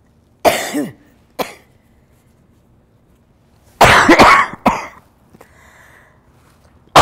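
An elderly woman coughing: a cough in the first second and a short one soon after, then a louder run of several coughs about four seconds in.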